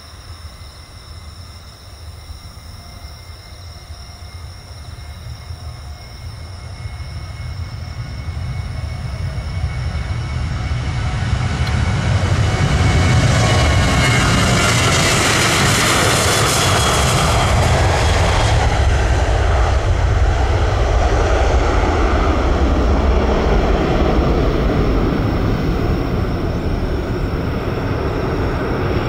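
Boeing 737-800's CFM56-7B jet engines at takeoff thrust as the airliner rolls down the runway, lifts off and passes close by. The noise builds steadily, is loudest with a high whine and hiss about halfway through, then settles into a heavy low rumble as the jet climbs away.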